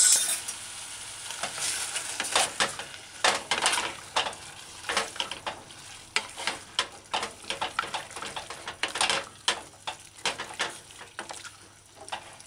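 Vegetables sizzling in a stainless steel saucepan as they are stir-fried with a wooden spoon just after the oyster sauce goes in. The spoon scrapes and knocks against the pan in quick, irregular strokes over a steady sizzle.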